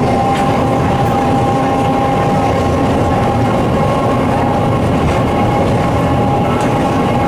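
Running noise inside a vintage Peter Witt-style tram cruising at steady speed: a steady low rumble of wheels on rail with an even high whine that holds one pitch.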